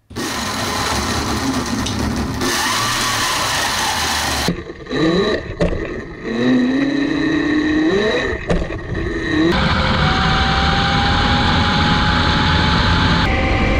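Electric mini bike motor whining while it is ridden fast, its pitch rising as it accelerates, over wind and tyre noise. It comes in a few short clips cut together. In the last few seconds a steadier whine climbs slowly.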